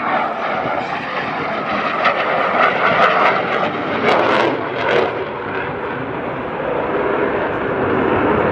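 Lockheed Martin F-35A Lightning II's single Pratt & Whitney F135 afterburning turbofan running at high power as the jet pulls up in afterburner: a loud, continuous jet rumble that swells and turns rougher two to five seconds in, then holds steady.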